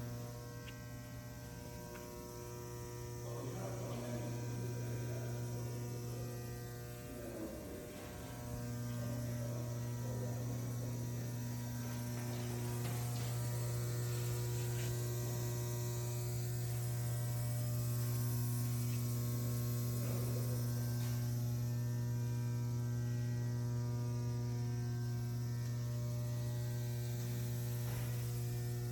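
Steady low electrical machine hum with several constant tones above it, from a powered-up CNC press brake. It is weaker for the first few seconds, breaks briefly about seven seconds in, then holds steady.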